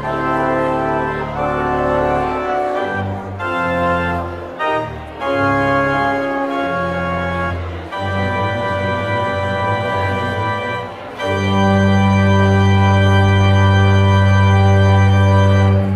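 Church organ postlude: sustained chords moving over deep bass notes, ending on a loud final chord held for about five seconds that stops near the end.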